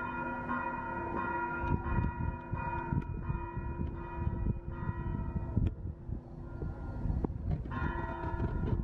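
Church bell ringing, struck again and again, its tones hanging and fading between strokes, with a fresh strong strike near the end. A low rumble runs underneath.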